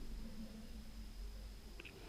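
Quiet room tone with a faint steady high whine and low hum, and one small click near the end, like a tiny part or tool being handled.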